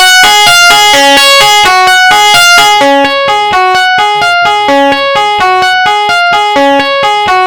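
Electric guitar played through an overdrive effect with the drive turned up, picking a repeating arpeggiated phrase one note at a time, about four notes a second, with a bright, heavily saturated tone.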